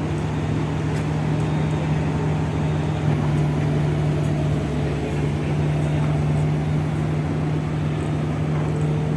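Heavy-equipment diesel engine running steadily with an even low hum.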